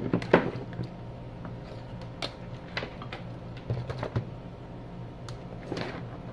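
Scattered light clicks and taps of handling on a workbench, the loudest about half a second in, over a steady low electrical hum.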